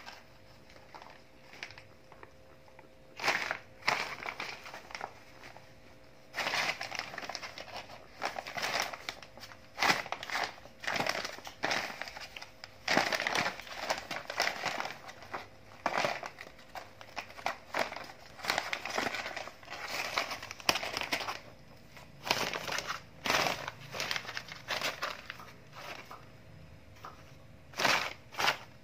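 Sheet of brown kraft paper crinkling and rustling in irregular bursts as kittens pounce on, paw at and crawl under it; the bursts come thick and fast through the middle.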